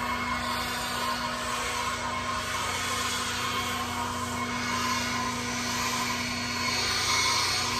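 String trimmer running steadily, a continuous hum with a whirring hiss over it.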